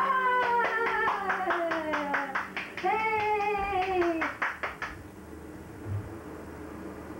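Voices singing two long, falling notes over steady, rhythmic hand-clapping. Both stop about five seconds in, leaving only a faint hiss.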